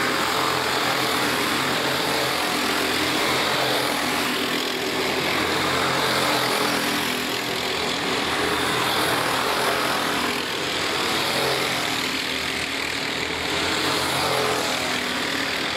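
Several four-stroke racing kart engines running at race pace, their note rising and falling as the karts brake and accelerate through the corners.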